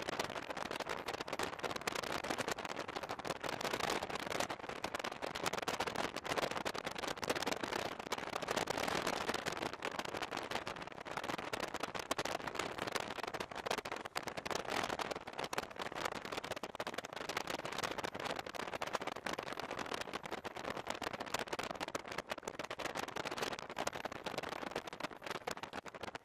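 Running noise of a passenger train in motion: a steady rushing clatter of wheels on rails, dense with small crackling clicks.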